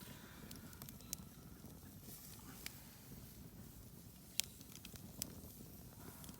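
Campfire crackling: scattered sharp pops and snaps over a faint low rumble, the loudest pop a little past the middle.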